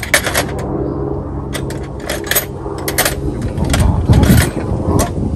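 Metal hand tools clinking and rattling as they are picked through in a metal toolbox, in a string of short sharp clinks. About four seconds in, a louder low rumble.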